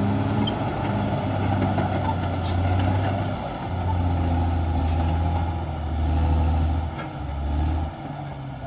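Caterpillar D6R XL bulldozer's diesel engine running steadily under load, with a brief dip in its drone about three and a half seconds in and another around seven to eight seconds.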